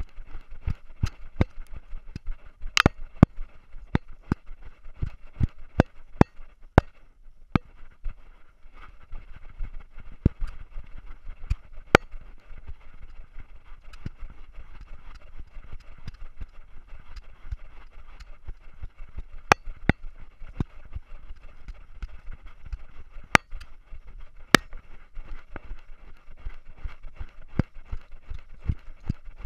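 A GoPro Hero3 Silver on the collar of a running dog, jostled with every stride: frequent, irregular sharp knocks and clicks over a steady muffled hiss.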